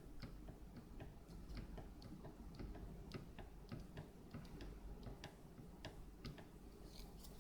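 Faint, irregular clicking, several clicks a second, from an RCX 1806 brushless motor's bell being rocked by hand: it knocks on worn main bearings that let the bell flex.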